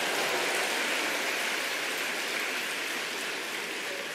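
Congregation applauding: dense, steady clapping that slowly dies down towards the end.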